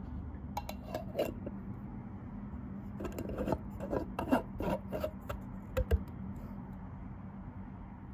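Screw lid being put on and twisted shut on a glass jar: a few clicks, then a run of scraping clicks and rubs from the threads between about three and six seconds in, over a low steady hum.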